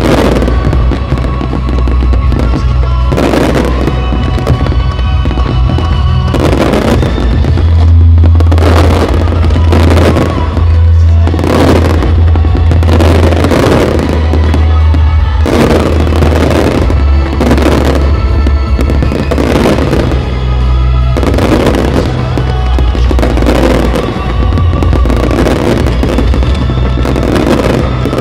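Large fireworks display: aerial shells bursting in quick succession, roughly once a second, over loud music with a steady bass.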